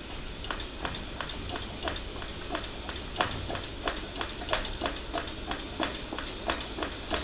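Hand air pump of a brass 500 c.p. pressure lantern being worked in quick, even strokes, about three clicks a second, pressurising the fuel tank after preheating, over a steady hiss.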